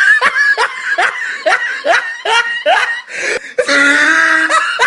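A person laughing hard in quick repeated bursts, about three a second, with a long drawn-out laugh about three and a half seconds in.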